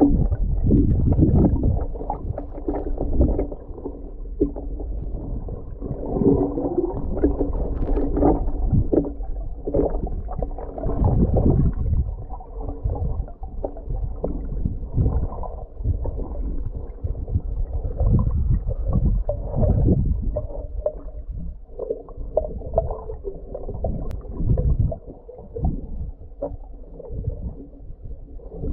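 Muffled rumbling and sloshing heard underwater, as legs in waders move through deep water, with irregular low thumps and swells.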